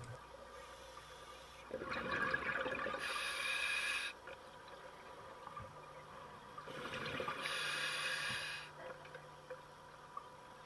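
Scuba diver breathing through an open-circuit regulator, heard through an underwater camera housing: two breaths about five seconds apart, each a rush of air and exhaled bubbles.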